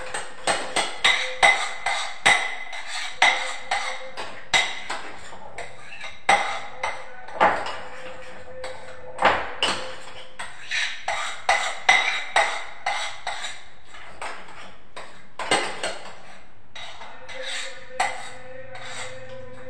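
A utensil clacking and knocking against a mixing bowl in quick, irregular taps as whipped cream is stirred with red food colouring.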